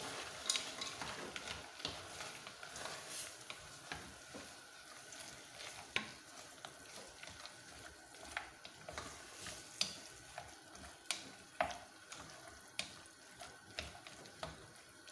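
Wooden spoon stirring githeri (boiled maize and beans) in a stainless steel pot, with scattered soft knocks of the spoon against the pot over a faint sizzle of the simmering sauce.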